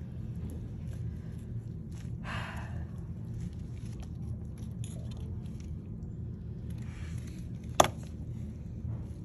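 Dissection handling sounds over a steady low hum: a brief rustling scrape about two seconds in, scattered faint ticks, and one sharp click near the end as steel instruments touch the stainless steel dissecting tray.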